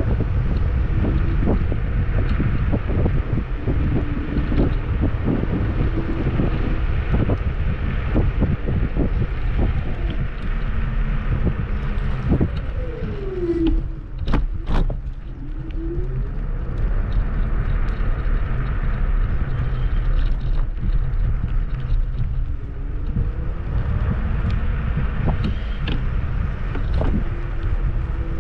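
Kugoo G2 Max electric scooter riding over a bumpy forest path: steady wind on the microphone and tyre rumble, with frequent small knocks from the bumps. About halfway through, the motor's whine falls as the scooter slows, then rises again as it speeds up.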